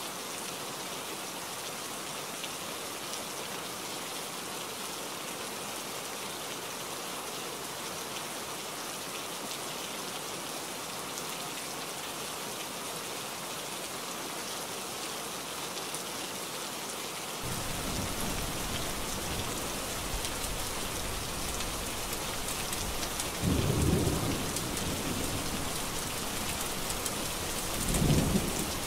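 Steady heavy rain. About two-thirds of the way in, a low thunder rumble joins. Two louder rolls of thunder follow, a few seconds apart near the end.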